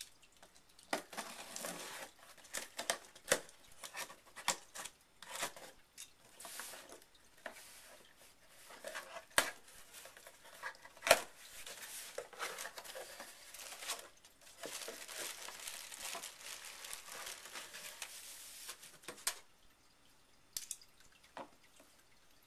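Cardboard shipping box being unpacked: packing tape slit and torn, cardboard flaps scraped open and plastic packaging crinkling. A run of rustling and scraping is broken by sharp knocks, two of them much louder than the rest.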